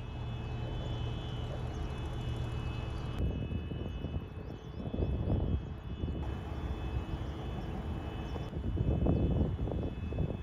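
Outdoor field-recording ambience: a steady low mechanical rumble, like distant traffic or an engine, that changes every few seconds, with louder rushing swells about five and nine seconds in.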